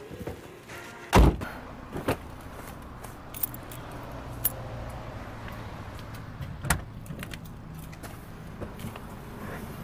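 Car doors heard from inside the cabin: a heavy door thump about a second in, then scattered lighter clicks and knocks and another sharp knock past the middle, as someone gets into the car, over a low steady hum.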